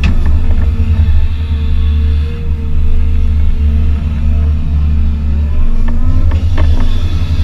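Caterpillar hydraulic excavator's diesel engine running under load as the boom swings and dumps a bucket of soil, with a steady whine over the drone and rising and falling tones as it works. Several clunks come near the end.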